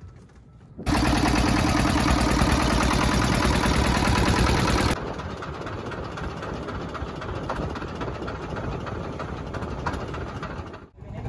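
Boat engine running: it comes in suddenly and loud with a fast, even beat for about four seconds, then drops to a quieter steady run, with a brief dip near the end.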